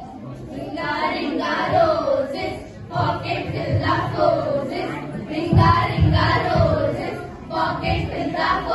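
A group of young voices singing a song together in unison, with some low thuds around the middle.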